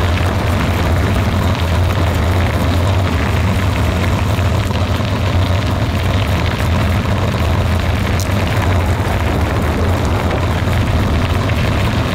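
Vehicle driving along a gravel-surfaced road: a steady low rumble of engine and tyres.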